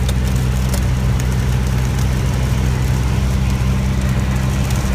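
The engine and propeller of a small single-engine plane drone steadily in flight, heard from inside the cabin. A low, even hum sits under a steady hiss.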